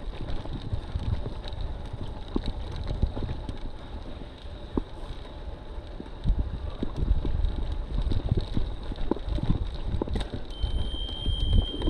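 Wind buffeting a handlebar-mounted action camera on a moving road bike, with low tyre rumble and irregular rattles and knocks from the bike over the road surface. A short high steady tone sounds briefly near the end.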